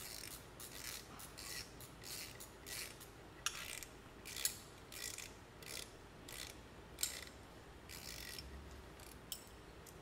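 Hand ratchet wrench clicking in short, irregular strokes as it is worked back and forth on a bolt at the front of a V8 engine block.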